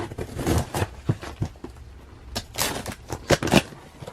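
A package being handled and opened by hand: scattered taps and knocks with short bursts of rustling packaging, busiest a little past halfway.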